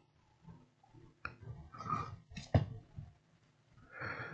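A few knocks and scrapes as a subwoofer's circuit board is moved and set down on a workbench. The loudest knock comes about two and a half seconds in.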